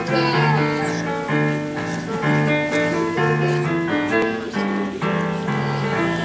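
Instrumental introduction to a folk song played on keyboard, a melody moving over a steady bass line, before the choir starts singing.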